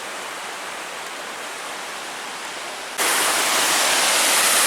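Rushing water of a rocky creek and its falls, a steady roar; about three seconds in it suddenly jumps louder and brighter.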